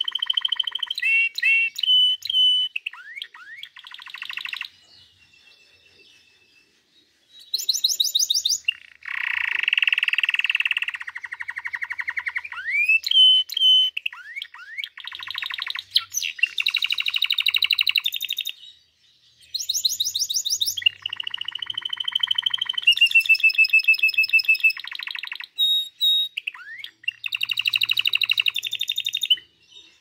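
Domestic canary singing: long phrases of very fast trills of repeated notes, mixed with held whistled tones and quick rising chirps. The song pauses for a couple of seconds about five seconds in, then carries on.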